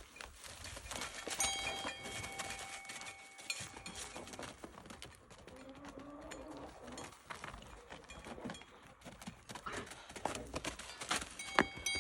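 Farm animals shuffling and moving about, with scattered knocks and rustling and a low bleat about halfway through. Two sharp knocks, one near the start and one near the end, ring briefly like metal being struck.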